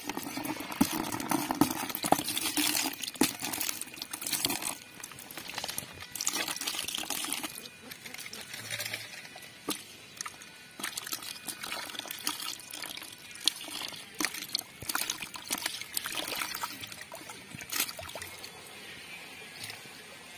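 Water poured from a plastic-bottle fish trap into a plastic bucket of water, trickling and splashing in repeated pours as the catch of small fish and eels is emptied out.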